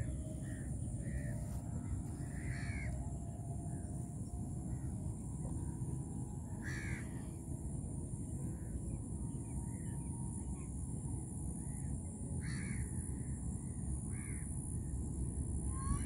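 Crows cawing on and off, loudest about 3, 7, 12 and 14 seconds in, over a steady low rumble of wind on the microphone.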